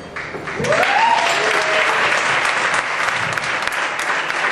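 A hall audience applauding. A single rising whoop from one person rings out about a second in.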